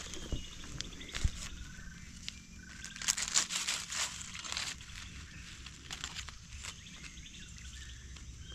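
Dry leaf litter and twigs crunching and rustling underfoot as someone walks through forest, the crackling thickest about three to five seconds in. A few faint short bird whistles sound behind it.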